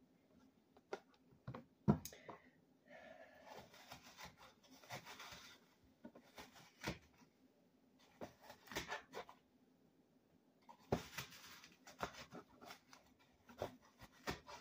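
A small knife cutting and scraping the core out of a peeled apple, in soft scraping patches with scattered light knocks of the knife and apple against a plastic cutting board.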